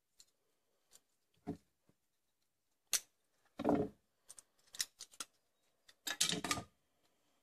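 Thin aluminium tealight cups clicking and crinkling in the hands as the tealight candles are worked out of them, in a series of short separate bursts; the longest crinkle comes about six seconds in.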